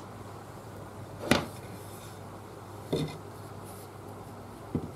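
Steel ball-peen hammer head handled on a steel workbench: three knocks, the first the loudest and the second with a short metallic ring, over a steady low hum.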